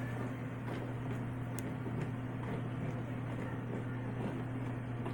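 Faint soft handling sounds of butter slime being pressed and spread flat by hand on a plastic placemat, over a steady low hum.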